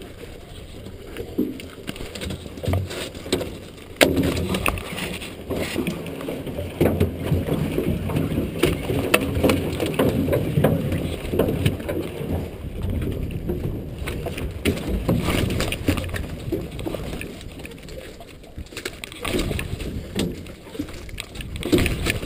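Muffled work sounds aboard a small fishing boat while a gillnet is picked: irregular knocks and clatter over a low rumble, with one sharp knock about four seconds in.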